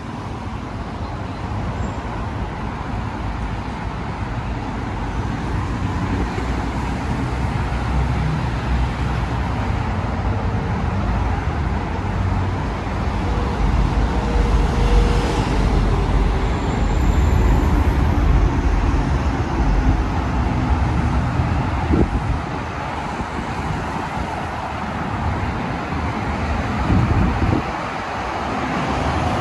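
Steady road traffic on a busy multi-lane highway: cars, vans and minibuses passing close by one after another, their engine and tyre noise swelling and easing as they go by, loudest through the middle stretch.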